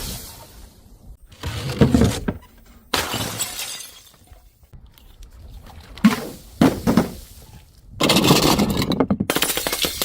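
Glass bottles shattering one after another: about five separate smashes, each with a crunch and falling shards, the longest and densest crunch near the end.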